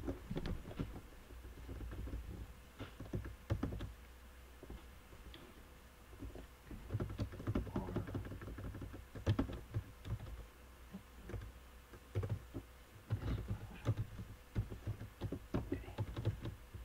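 Computer keyboard typing: irregular keystrokes in short runs with pauses, fewer of them around four to six seconds in, over a low steady hum.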